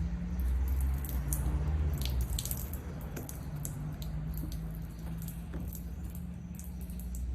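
Wet squishing and dripping from a water leak, with scattered small clicks and crackles, over a low steady hum.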